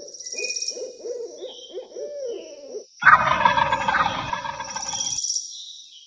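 An owl hooting in a series of wavering calls, then a louder, rougher animal call about three seconds in that lasts roughly two seconds. A high, pulsing insect trill runs underneath throughout.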